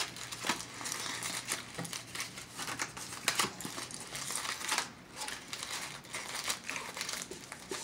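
Aluminium foil burger wrapper being crumpled and balled up by hand: a run of irregular crackles and crinkles.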